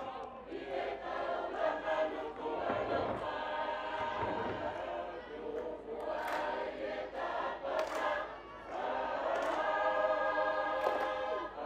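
Tongan lakalaka sung by a large mixed school group, many voices singing together in parts. A few sharp hand claps cut through the singing.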